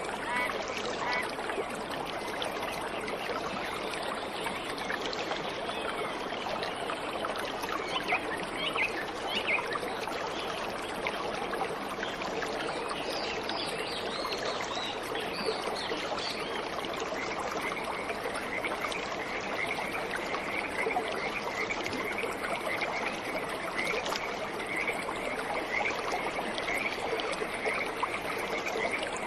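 Waterfall rushing steadily, with birds chirping over it: a few short rising calls in the first half, then a fast repeated chirp at one pitch from a little past halfway.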